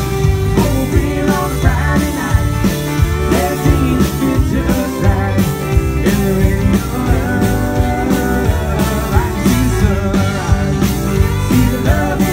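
Live country band playing an instrumental passage: electric guitars, bass and a drum kit keeping a steady beat, loud throughout.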